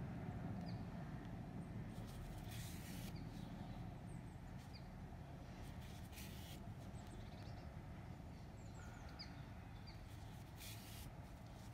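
Faint, scattered high chirps of garden birds over a low steady rumble, with three brief soft rustles as the yarn is drawn through the crocheted piece.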